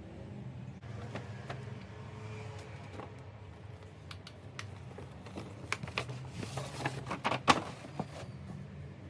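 Handling noises: scattered light clicks and rustling, busiest from about five and a half to eight seconds in, over a steady low hum.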